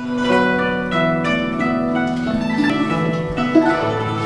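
Guzheng (Chinese zither) played live: a slow melody of plucked notes that ring on and overlap, with a lower note coming in near the end.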